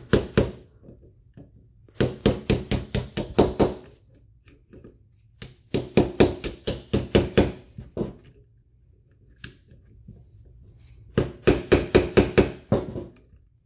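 Small white-headed hammer tapping a pin punch in quick runs, about five light taps a second, to drive the trigger pin out of a Canik TP9SFX pistol frame. Four runs of taps with short pauses between.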